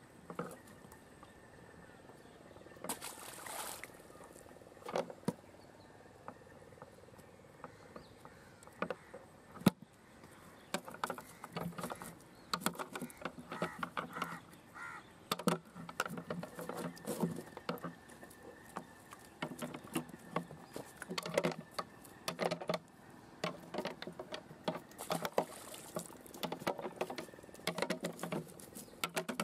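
A wet cast net being picked clear of live prawns over a plastic crate: a stream of irregular quick clicks, taps and rustles, busier in the second half, with a short hissing rustle about three seconds in.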